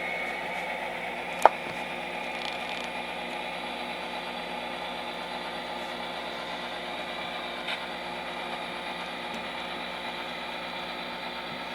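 Model locomotive's Tsunami DCC sound decoder playing a steady simulated SD40 diesel engine through its small speaker, with mechanical whirring. A sharp click about a second and a half in, and a fainter one later.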